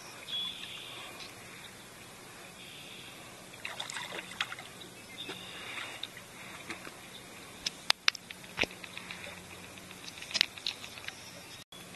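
Light splashing and dripping of river water as mating turtles roll at the surface, with scattered sharp ticks, a cluster about eight seconds in and another near ten.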